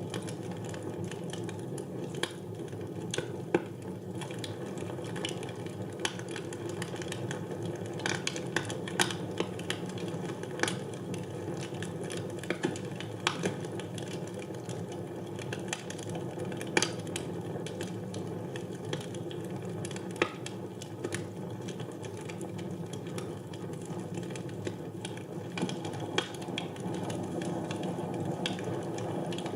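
Wood fire burning in a fireplace: a steady low rush of flame with irregular sharp crackles and pops throughout.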